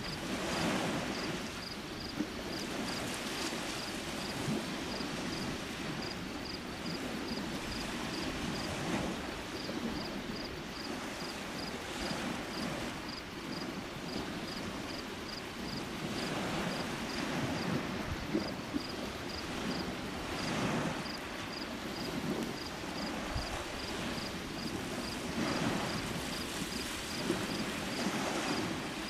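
Small Lake Huron waves washing in at the shore: a steady wash that swells in a soft surge every few seconds.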